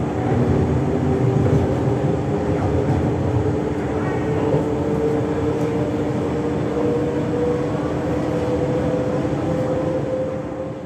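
Stationary Z 20500-series (Z2N) double-deck electric multiple unit humming at the platform: its onboard equipment gives a steady low rumble with a tone that slowly rises in pitch from about four seconds in.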